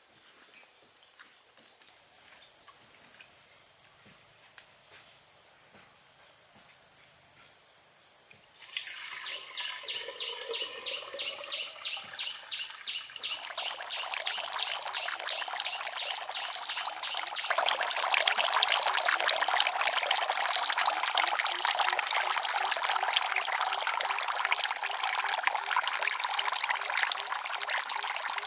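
A steady high-pitched insect drone, briefly joined by a fast pulsing chirp; about two-thirds of the way through, water starts streaming from holes in a clay pot fountain into a shallow cement pond, a steady splashing trickle.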